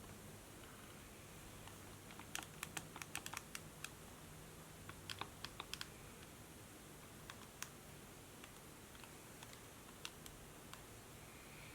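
Laptop keyboard typing, faint: two quick runs of keystrokes, then a few single key taps, over a steady low hum.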